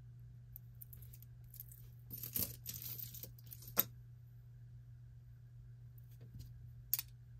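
Metal costume jewelry clinking as pieces are handled and set down on a pile of jewelry: a short cluster of small metallic clicks, a sharper click soon after, and a couple more clicks near the end.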